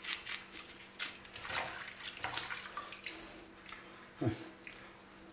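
Toothbrush scrubbing a small plastic action figure's legs in warm soapy water, irregular scratchy brushing strokes with small splashes as the hands work in the sink. One short falling tone sounds near the end.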